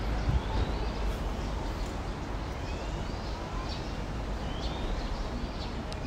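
Caged songbirds chirping and whistling: brief rising notes from several birds, about two a second, over a steady low rumble.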